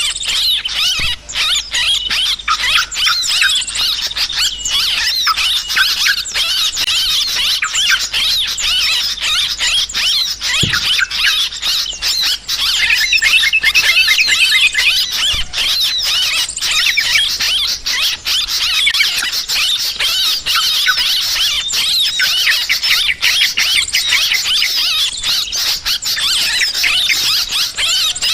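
Yellow-vented bulbuls (trucukan) calling noisily and without pause, many quick, chattering calls overlapping: the agitated alarm chatter used as a bird-trapping lure.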